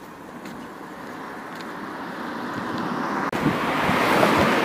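Road traffic: a vehicle's noise grows steadily louder for about three seconds, then changes abruptly to louder traffic noise with wind rumbling on the microphone.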